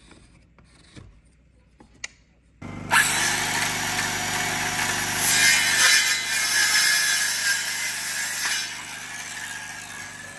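Cordless circular saw starting suddenly about two and a half seconds in and cutting through a wooden board, loudest through the middle of the cut, then trailing off as the cut finishes.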